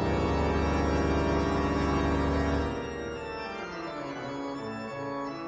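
Background music of held organ chords over a deep bass drone; the bass drops out about halfway through, leaving quieter sustained chords.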